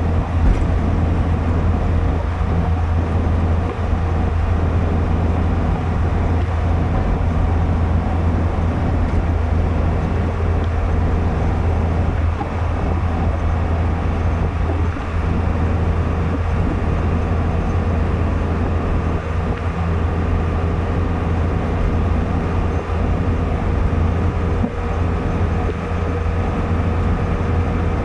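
Car interior noise at highway speed: a steady drone of engine and tyres with a strong low hum and faint steady tones above it. A brief click about half a second in.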